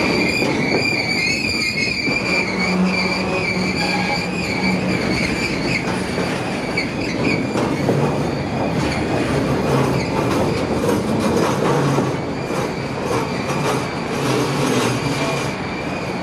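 Freight train flatcars rolling slowly past, the steel wheels squealing against the rail with a wavering high tone that fades after about six seconds. The wheels then rumble and click over the rail as the last car goes by, and the sound eases near the end.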